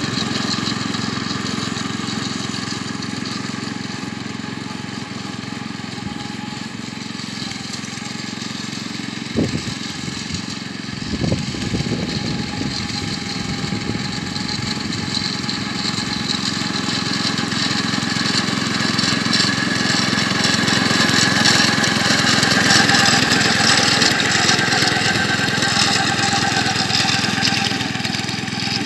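A Merry Tiller with a rotary mower attachment, its small petrol engine running steadily while it cuts grass. It grows louder near the end as the machine comes closer. A few brief knocks sound about a third of the way in.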